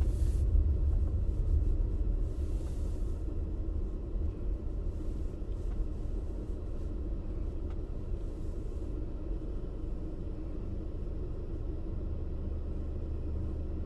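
Low, steady rumble of a car heard from inside the cabin as it creeps forward on a snow-packed road toward stopped traffic. The rumble eases over the first few seconds as the car slows, then stays level.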